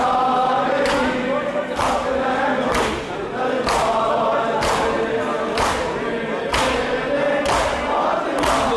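A crowd of men chanting a noha (mourning lament) together, with matam chest-beating strikes landing in unison on the beat about once a second.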